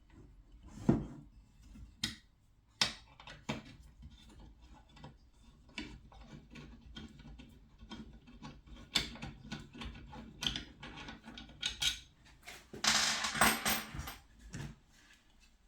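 Hand tools and metal parts being handled during boiler repair work: irregular clinks, clicks and knocks, with a denser scraping, rattling stretch of about a second and a half near the end.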